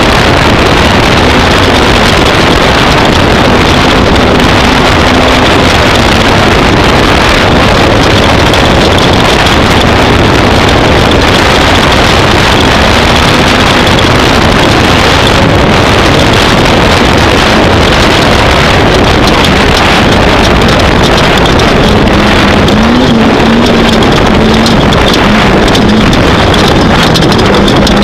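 Off-road race vehicle's engine running hard at speed, its note rising and falling with the throttle, under a loud, steady wash of wind and terrain noise.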